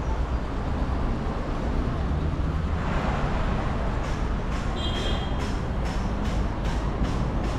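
City street traffic noise: a steady low rumble, with a vehicle passing about three seconds in. Halfway through comes a short high squeal, and in the second half there are steady taps, about two or three a second.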